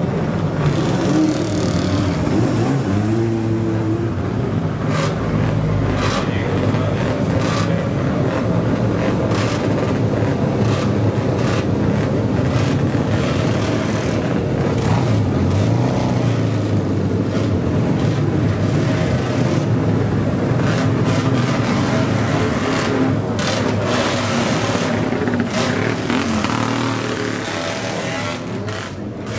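Motor vehicle engines running and being revved, the pitch rising and falling several times, over a background of voices.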